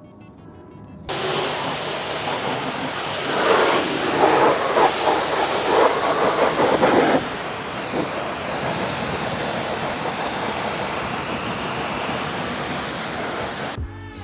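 Pressure washer spraying: a steady hiss that starts suddenly about a second in, grows louder and rougher for a few seconds in the middle, then cuts off abruptly near the end.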